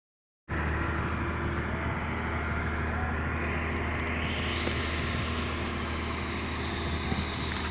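Heavy diesel construction machinery, an excavator or dump truck engine, running steadily, starting about half a second in after a cut. A few seconds in, a hiss rises in pitch over the engine hum.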